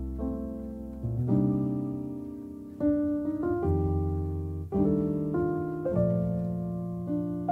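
Background music: a piano playing slow chords, a new chord struck about every second and ringing out until the next.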